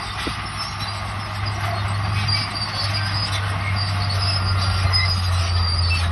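Crawler bulldozer working: the diesel engine runs with a steady low drone while its steel tracks give short, high, scattered squeaks.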